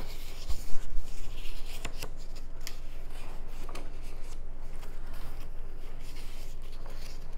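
Hands handling game cards and paper components: soft rubbing and rustling with a few light taps and clicks, the loudest about a second in.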